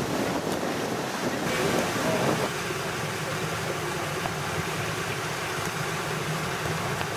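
Steady rushing noise of pool water with wind buffeting the microphone.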